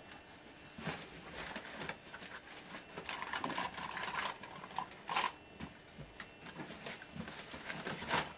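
Hands rummaging through a fabric bag inside a metal trunk: rustling and shuffling with scattered knocks and clatters, the sharpest about five seconds in and again near the end.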